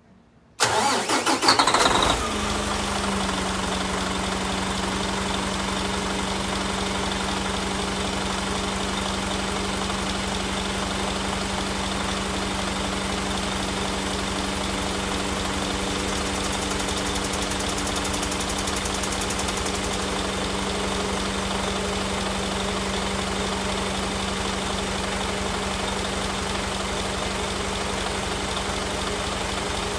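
Mitsubishi Fuso Aero Ace tour bus's 6R10 inline-six diesel, heard at the open rear engine bay, cranked by the starter and firing about half a second in: a loud start lasting about a second and a half. It then settles into a steady idle, whose note drops slightly a second or so after it catches.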